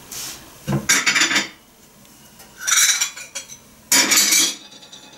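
Crockery and cutlery clinking and clattering in three short bursts, about one, three and four seconds in, as dishes are handled while a saucer is fetched.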